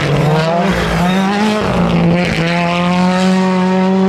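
Rally car engine running hard on a gravel stage, a loud steady engine note whose pitch shifts and jumps suddenly about halfway through.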